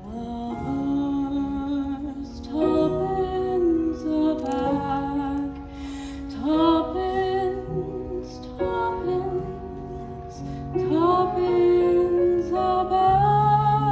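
A slow, gentle song: a voice sings long held notes with vibrato in phrases of a couple of seconds, over soft instrumental accompaniment with sustained bass notes.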